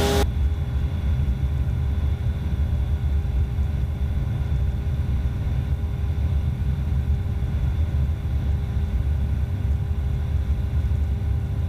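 Evektor SportStar light sport aircraft's Rotax 912 engine and propeller droning steadily in flight, heard inside the cockpit: an even low rumble with a few steady hums above it.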